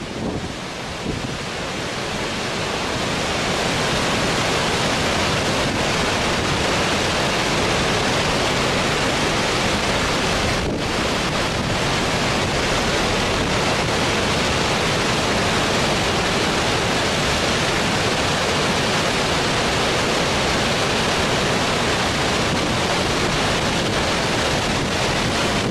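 Steady rush of fast-flowing floodwater mixed with wind buffeting the microphone, building up over the first few seconds and then holding steady.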